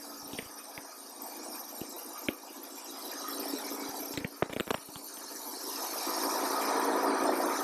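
Wood-Mizer LT40 Wide band sawmill running with its dust collector, a steady mechanical hum. A few sharp clicks come about halfway through. The sound then swells louder and drops off suddenly at the end.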